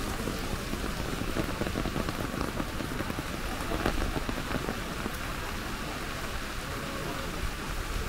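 Steady rain hitting an umbrella held overhead, a dense, even patter of raindrops.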